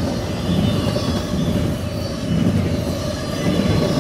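Double-stack intermodal well cars of a CSX freight train rolling past at speed: a steady loud rumble of steel wheels on rail with a faint steady high ring over it.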